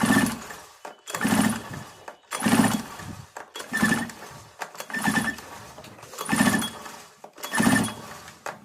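Recoil starter of a 63 cc two-stroke mini tiller being pulled about seven times, roughly once a second, each pull spinning the engine over with a short whirr. The spark plug is out of the cylinder for a spark check, so the engine turns freely without firing.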